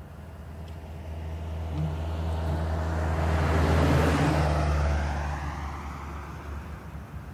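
A car passing by: engine hum and tyre noise swell to a peak about four seconds in, then fade away with a falling pitch.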